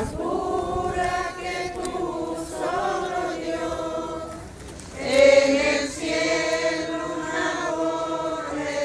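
A crowd of worshippers singing a hymn together in slow, held notes, swelling louder about five seconds in.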